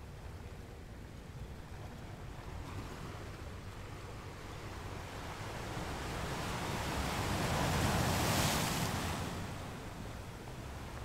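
Ocean surf breaking on a sandy beach: a continuous rushing wash of waves that swells to its loudest about eight seconds in as a wave crashes, then falls back.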